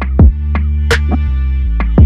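Electronic background music: a fast drum-machine beat with deep kicks and sharp snare hits over a steady bass.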